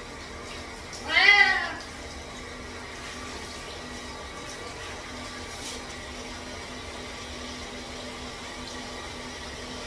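Bengal cat meowing once, loudly, about a second in, the pitch rising and then falling, while a handheld shower head runs water steadily over it.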